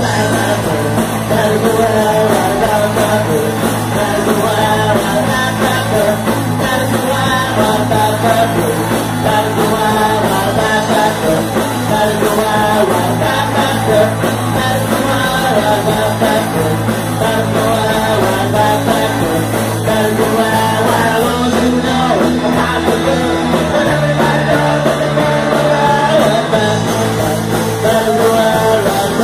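Live punk rock band (drums, bass and electric guitar) playing loudly with a singer. The bass note shifts several times in the last eight seconds.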